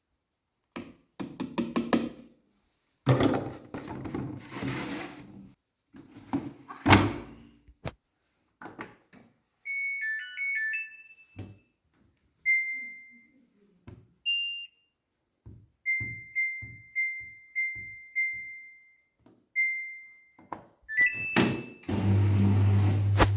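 Rustling and several dull thuds as the Samsung washing machine is handled and shut, then its short power-on tune, a string of single beeps from the control-panel buttons, and another short tune, after which the machine starts with a steady low hum near the end.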